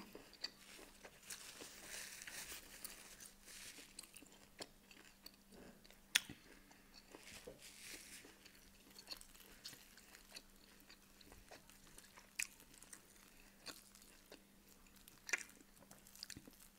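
Faint, close-miked chewing of beef rib steak, with fingers pulling meat from the bone. Scattered sharp clicks run through it, the loudest about six seconds in and again near the end.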